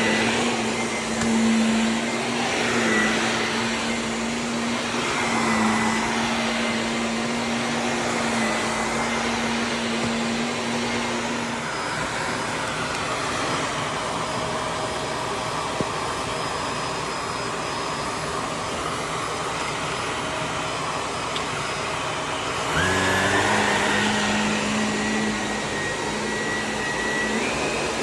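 Vacuum cleaner running continuously with a steady motor hum. About twelve seconds in the hum's note fades out, and near the end it comes back abruptly along with a high whine, as the motor's load changes.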